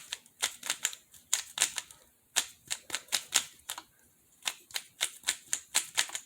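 Moyu RS3M 2021 Maglev 3x3 speedcube being turned quickly: rapid clicking as the layers snap into place under the magnets, in fast runs with short pauses, about two and four seconds in.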